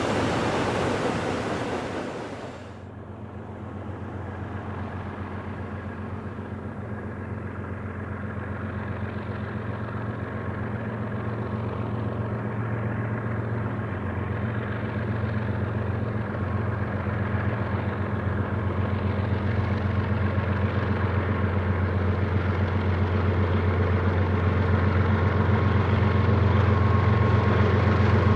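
Rushing, rolling noise of a freight train passing, cut off sharply after about two and a half seconds. Then the diesel engines of several BNSF diesel-electric locomotives run with a steady low drone, growing slowly louder as they approach.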